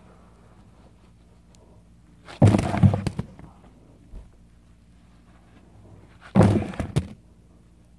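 Two batches of polystyrene packing peanuts dumped into a cardboard box over the microphone, each a sudden thud followed by a short rustle, about four seconds apart.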